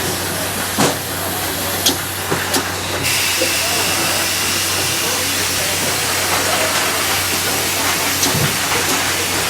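Lid-closing machine running with a steady low hum and a few sharp clicks in the first three seconds; about three seconds in a steady hiss sets in and continues.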